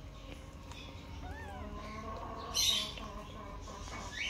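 A kitten's small, thin mew, rising and falling, about a second in. Short high chirps come about two and a half seconds in and again near the end, and are the loudest sounds.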